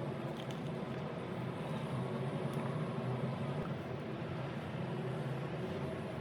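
Steady low hum of a car in motion, engine and road noise heard from inside the cabin.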